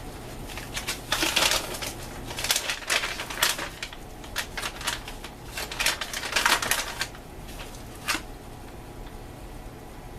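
Plastic of an MRE flameless ration heater bag crinkling and rustling in irregular bursts as it is handled, stopping a little after the middle.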